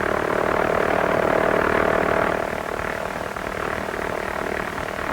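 Propeller aircraft engine droning steadily, a little louder in the first couple of seconds and then easing off slightly, with the thin, hissy sound of an old newsreel soundtrack.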